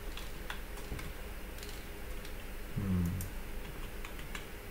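Computer keyboard and mouse clicking: about a dozen short, irregular clicks, coming closer together near the end.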